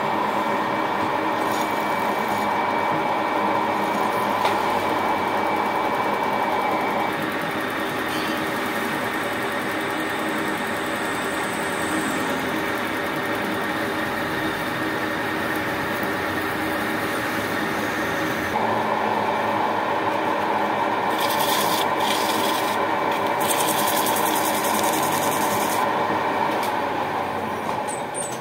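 Manual metal lathe running steadily with several steady tones, a cutting tool turning a nylon bearing housing. The cutting sound eases about seven seconds in and strengthens again around eighteen seconds.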